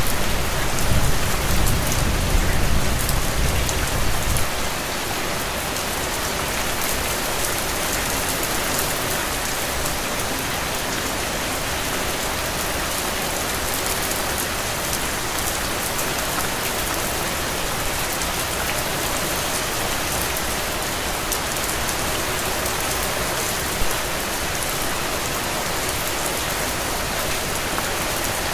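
Heavy, steady rain falling on soil and puddles: a dense, even hiss. A low rumble sits under it for the first four seconds or so and then stops fairly suddenly, and one sharp tap stands out about four seconds before the end.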